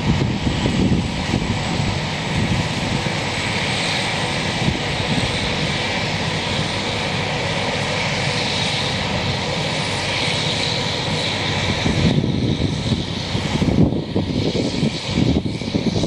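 Claas Jaguar 980 self-propelled forage harvester chopping corn under load: a loud, steady engine drone mixed with the rush of chopped silage blown out of its spout. The tractor running alongside adds to it, and the low rumble grows rougher and more uneven in the last few seconds.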